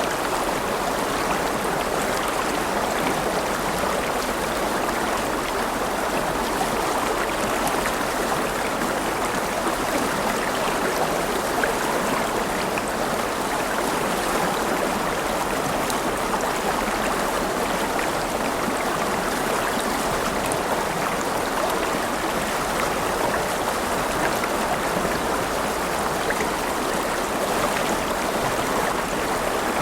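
River water flowing steadily over rocks, a continuous rushing and burbling.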